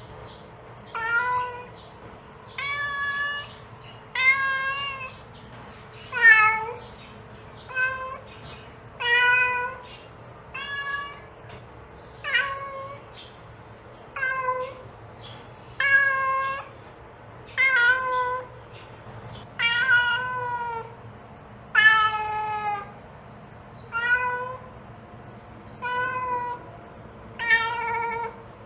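Mother cat calling her kittens: a repeated meow, about sixteen calls, one every second and a half to two seconds, several falling in pitch at the end.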